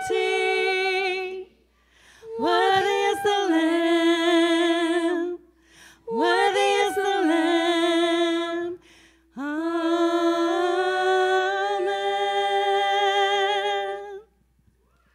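Worship singers singing the closing "Amen" phrases of a song, largely unaccompanied. There are four long held phrases with vibrato, separated by short breaths, and the last is held for about five seconds before stopping.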